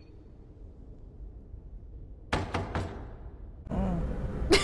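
Three quick, sharp knocks about two and a half seconds in, over a faint low hum from the show's soundtrack. Near the end comes a louder sound with a wavering pitch.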